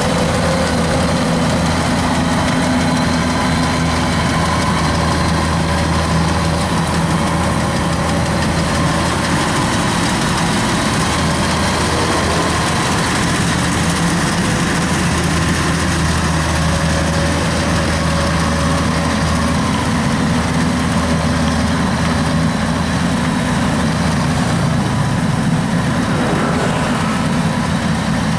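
Kubota DC93 combine harvester's diesel engine running steadily, a constant drone.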